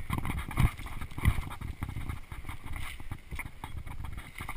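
Mountain bike rattling and knocking as it rolls down a bumpy dirt singletrack, with steady jostling over the ground and two harder knocks in the first second and a half.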